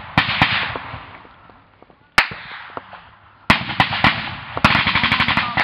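Gunfire in a firefight: a couple of shots at the start, a single sharp crack a little after two seconds, then rapid bursts of automatic fire from about three and a half seconds on, echoing.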